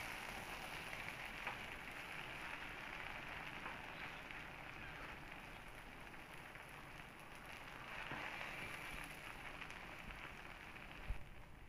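Yellow noodles frying in a wok, sizzling steadily as they are tossed with a spatula, with a few light clicks of the spatula against the pan and a knock near the end.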